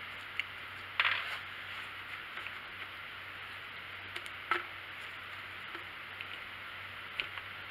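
Needle-nose pliers and gloved hands working inside a chainsaw's fuel tank opening to grab the fuel filter: a few scattered metal clicks and scrapes, the sharpest about a second in and about halfway through, over a steady hiss.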